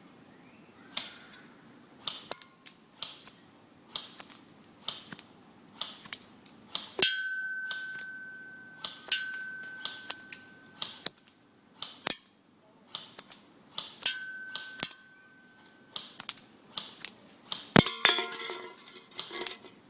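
KingArms M4 airsoft rifle firing single shots again and again, about one or two sharp snaps a second, at a metal target about 65 feet away. Twice a hit sets the target ringing with a steady tone that fades over a second or two, and near the end the shots come in a quicker clatter.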